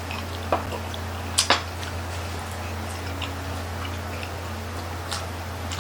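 Close-miked eating sounds: a few sharp clicks and light smacks, the strongest a quick pair about a second and a half in, over a steady low hum.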